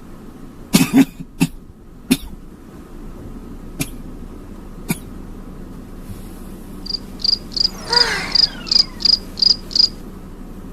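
A person coughing hard a few times in the first two seconds: put-on coughing, faking a bout of coughing up blood. In the second half, a run of about nine high chirps, evenly spaced at about three a second, with a falling whistle-like glide across them.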